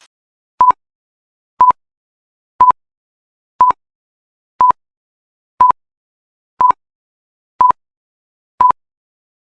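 Electronic workout interval timer beeping once a second: nine short, single-pitch beeps, evenly spaced, with silence between them. This is the timer counting through the break between exercises.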